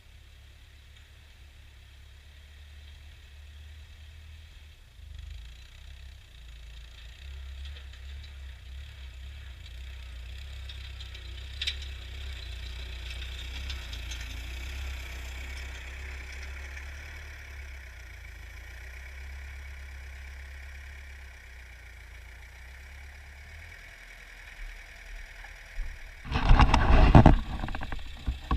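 Ford farm tractor engine running steadily while ploughing, growing louder toward the middle and easing off again. Near the end comes a loud, noisy burst lasting about a second.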